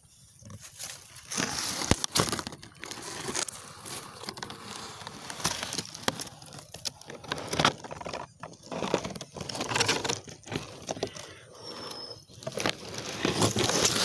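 Rustling, crinkling handling noise with many scattered sharp clicks, starting about a second in and coming and going in loudness, typical of a phone camera rubbing and shifting against a rifle scope's eyepiece.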